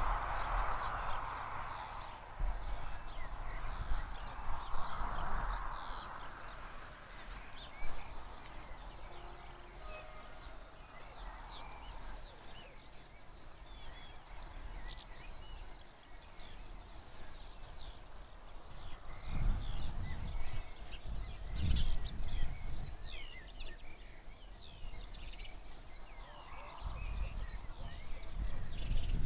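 Outdoor rural ambience made up mostly of many small birds chirping and singing. Low gusts rumble on the microphone now and then, heaviest a little past the middle and again near the end.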